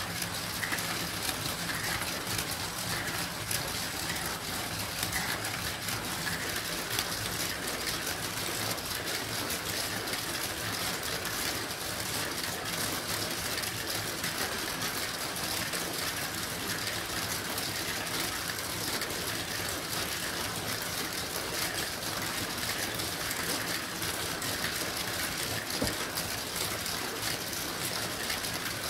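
Many marbles rolling along the metal rails and through the plastic tiles of a Gravitrax marble run at once: a steady, dense rattle of rolling with many small clicks.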